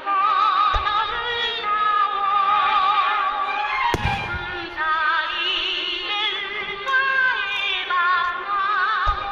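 Fireworks music with a singing voice playing over loudspeakers, punctuated by firework shells bursting with deep booms: one about a second in, a louder one around four seconds, and another near the end.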